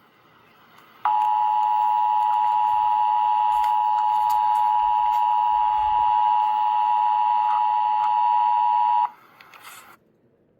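Emergency Alert System attention signal: a steady two-tone alarm held for about eight seconds, starting about a second in and cutting off abruptly.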